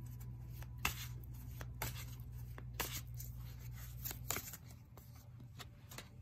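Wise Dog Tarot deck being shuffled by hand: a run of short, irregular card slaps and rustles, roughly one every half second to second.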